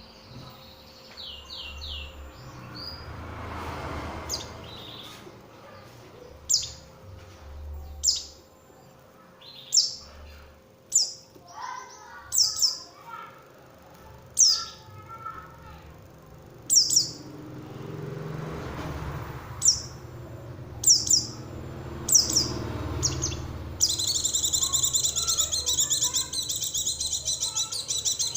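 Bird sound played as a lure for white-eyes (pleci): sharp, high, falling call notes every second or two. About three-quarters of the way in, these give way to a dense, continuous high-pitched chattering song.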